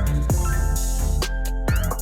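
Background hip hop music with deep bass and drum hits.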